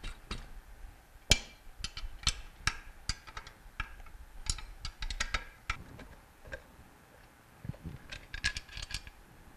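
A metal wrench clicking and knocking on the bolts of a Bell & Gossett Series 60 circulator pump's motor bracket as they are loosened, with the pump handled on the bench. The taps are sharp and irregular, the loudest about a second in.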